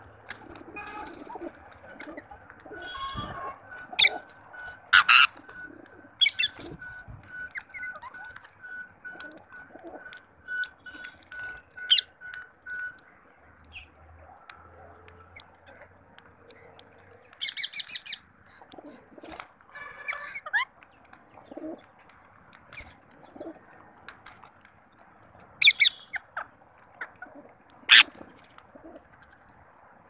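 A mixed flock of rose-ringed parakeets, rock pigeons and a house crow feeding on the ground. Pigeons coo and wings flap. A short note repeats evenly for the first half, and a few loud, sharp calls come in the second half.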